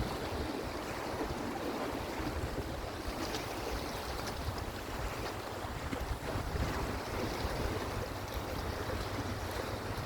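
Wind buffeting the microphone in low, uneven gusts over a steady wash of sea water.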